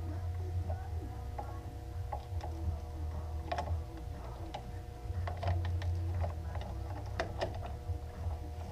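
Irregular small clicks and ticks of hand tools and plastic throttle parts being handled during reassembly of a motorcycle's throttle housing, over a steady low hum.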